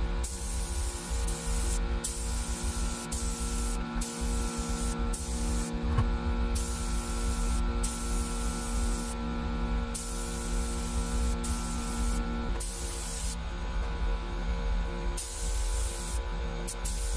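Air-fed paint spray gun spraying sealer onto a bare-metal 1969 VW Beetle body: a hiss that starts and stops with each trigger pull, in repeated bursts of one to a few seconds, over a steady hum.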